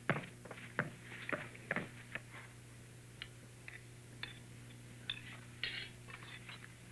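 A ball kicked and bouncing on hard dirt ground, four dull thuds in the first two seconds. Later come light scattered clinks of spoons on plates at a meal. A steady low hum sits under it all.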